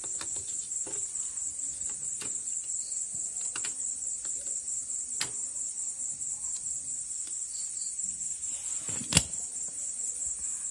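Crickets chirping steadily, with scattered light metallic clicks and clinks from engine gears and parts being handled and seated by hand; one sharper click a little after nine seconds in.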